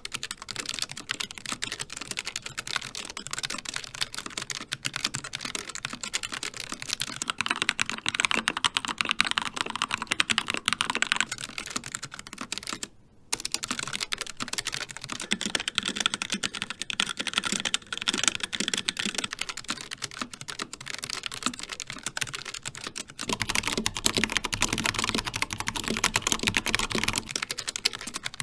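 Continuous fast typing on a Logitech G915 mechanical keyboard with low-profile GL Linear switches: dense, rapid key clacks, with a brief pause about thirteen seconds in and a fuller, deeper sound in the last few seconds.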